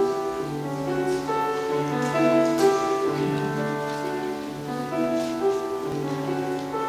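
Slow instrumental introduction on grand piano with steadily held notes and a recurring low held note, before the choir comes in.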